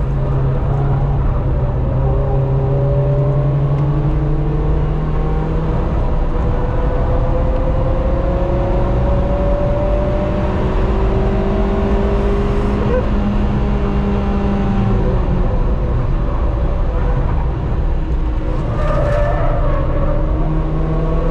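Track car's engine under load, heard from inside the cabin, with tyre and wind noise. The pitch climbs slowly through a long pull and shifts again near the end.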